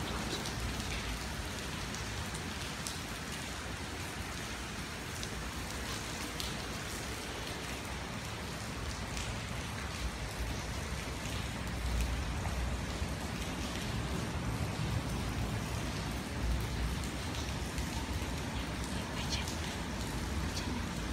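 Steady rain falling, with scattered single drops tapping.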